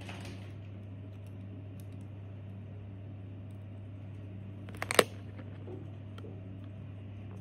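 A low steady hum, with one sharp double click about five seconds in.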